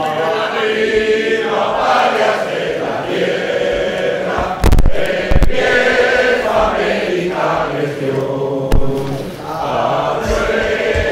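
A large group of voices singing together in a hall. A few loud knocks cut through about halfway and once more later.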